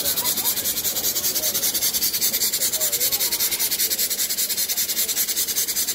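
Small live-steam model engine running fast, its exhaust steam making a rapid, even beat of hissing chuffs several times a second.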